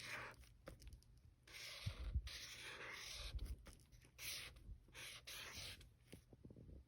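Writing by hand on paper: a series of short strokes, each lasting well under a second.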